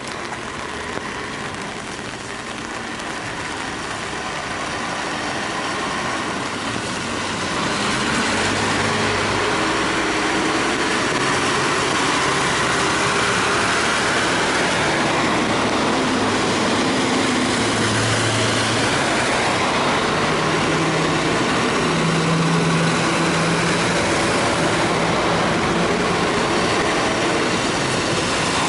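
Heavy trucks and escort vehicles passing on a rain-wet road: a steady hiss of tyres on wet pavement with engine noise underneath, growing louder about seven seconds in as the vehicles come close.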